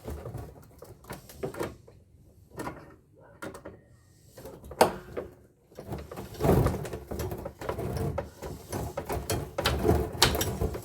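Hand-working copper pipe loose from an air-conditioner coil: irregular metallic knocks, scrapes and rattles, denser and louder in the second half.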